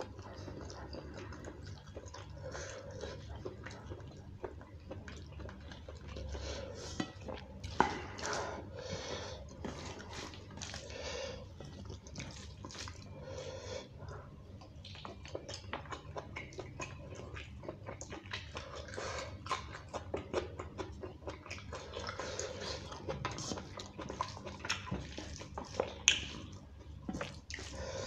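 Close-up eating sounds: wet chewing and lip smacking of curry and rice, with the squelch of fingers mixing rice and curry on a steel plate. Two sharp clicks stand out, about a quarter of the way in and near the end.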